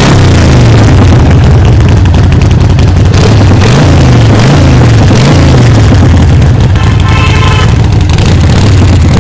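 Harley-Davidson Forty-Eight's air-cooled Evolution V-twin running through its dual exhaust pipes, idling and blipped up and back down several times, with three quick revs in a row about four to five seconds in. Heard close to the exhaust outlets and very loud.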